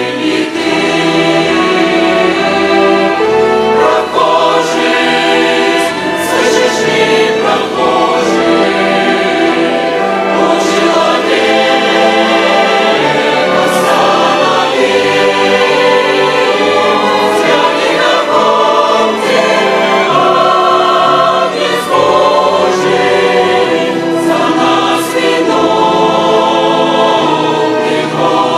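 Chamber choir singing a Russian hymn in harmony, accompanied by a violin orchestra.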